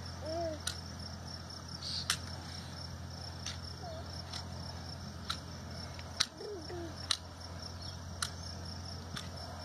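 Farrier's trimming tools working a horse's hind hoof: irregular sharp clicks and snips, roughly one every half second to a second, against the steady chirring of insects.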